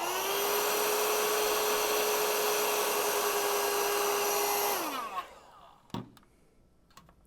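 Heat gun switched on, its fan whine rising to a steady pitch and running for about five seconds while shrinking a solder-sleeve shield splice, then switched off and winding down. A couple of faint clicks follow.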